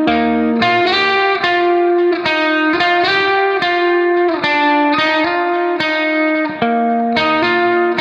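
Background instrumental music: a plucked-string melody of quick notes that change every fraction of a second.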